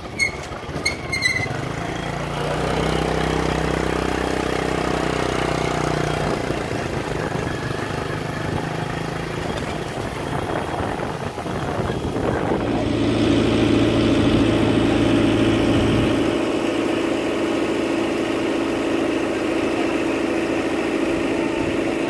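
An engine running steadily, its hum changing pitch and growing a little louder about halfway through, with a few clicks at the very start.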